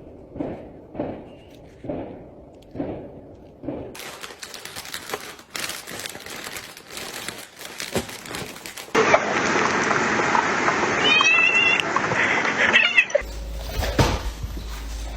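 Cats meowing across several short clips: a run of short repeated calls in the first few seconds, a few brief meows over loud steady noise in the middle, and another meow near the end.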